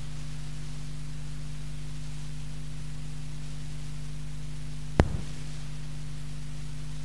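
Steady electrical hum with a light hiss, broken by a single sharp click about five seconds in.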